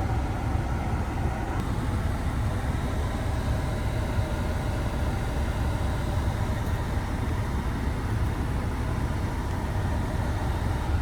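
Jeep engine idling steadily, a low, even running sound.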